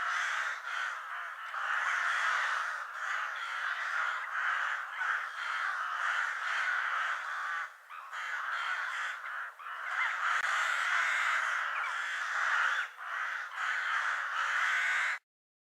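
A flock of ravens cawing and croaking over one another in a dense, unbroken chorus that cuts off suddenly near the end.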